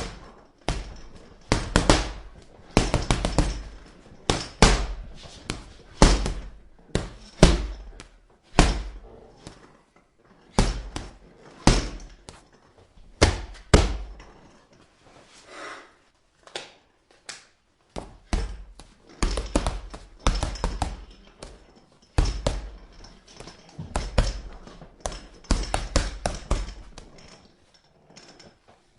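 Punches landing on a punching bag: a long series of dull thuds, some single and some in quick flurries, with a lull about halfway through.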